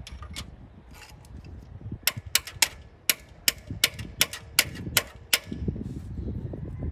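A series of sharp metallic clicks and taps, about a dozen in three seconds at an uneven pace, from hand tools working on the tractor's engine while it is shut off. A low rumble follows near the end.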